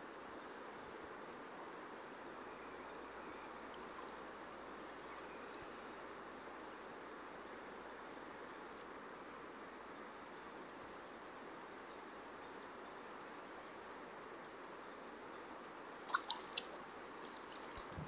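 Steady rush of flowing river water with faint scattered ticks, and a few sharp clicks about two seconds before the end.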